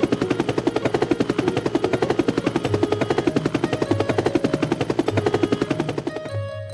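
Helicopter rotor sound effect: a fast, even chopping of about a dozen beats a second as the helicopter lifts off, stopping shortly before the end.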